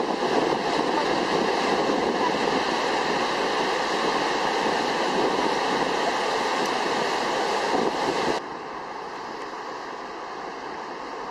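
Water pouring down a dam spillway in a heavy discharge: a loud, steady rushing. About eight seconds in it cuts suddenly to a quieter, duller rush of a spillway heard from farther off.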